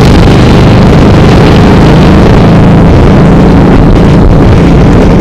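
Touring motorcycles riding along a highway, their engines running loud and steady.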